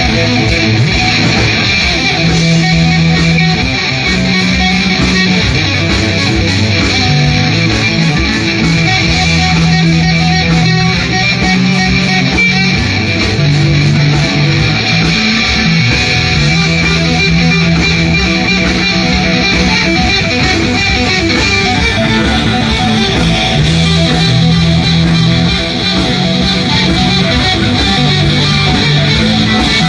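A band playing an instrumental passage led by electric guitar, over a bass line that steps from note to note.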